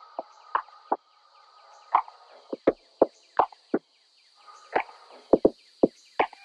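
A run of about fourteen sharp, irregularly spaced knocking clicks, some in quick pairs, over a faint steady hiss.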